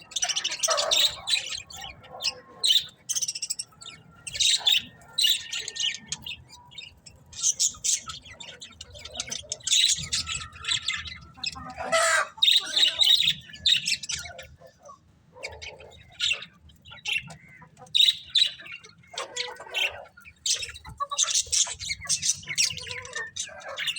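Budgerigars chirping and chattering in short, busy bursts of high calls with frequent squawks.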